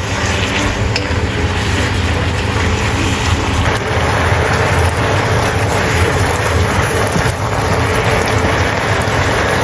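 Amaranth leaves sizzling and bubbling in a wok in a fermented bean curd sauce thinned with a little water, stirred with a wooden spatula; a steady frying hiss.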